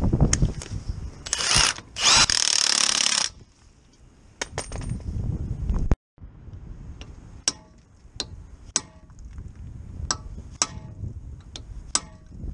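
Hand ratchet clicking as it turns the driveshaft hub nut on a Mini's front hub, each click sharp with a short metallic ring. Earlier there are handling knocks and about two seconds of loud hiss.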